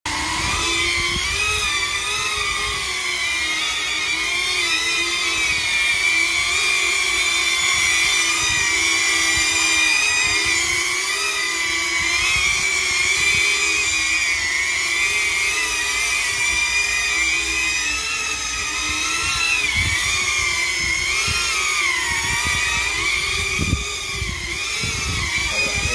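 FPV quadcopter's 2206 brushless motors spinning props inside 3D-printed polypropylene ducts: a high, buzzing whine with several pitches that waver up and down together as the throttle changes in flight.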